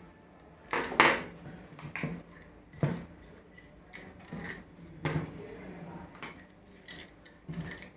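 Steel sprockets of a 9-speed bicycle cassette clinking and clicking against each other as the cassette is turned over in the hands: irregular light metallic knocks, the loudest about a second in and about three seconds in.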